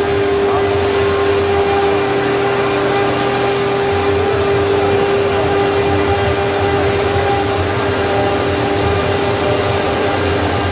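Chencan CC-1325B stone CNC router's spindle running with a steady whine while its engraving bit cuts into a black stone slab under a water coolant spray.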